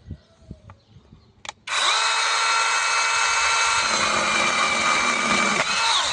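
Battery-powered 6-inch mini chainsaw with a brushless motor: a short blip on the trigger, then it spins up and runs at a steady high whine for about four and a half seconds before winding down.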